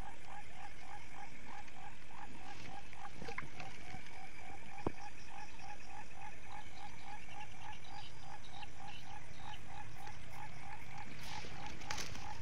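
Frogs croaking in an even, rapid run, about three calls a second, without a break.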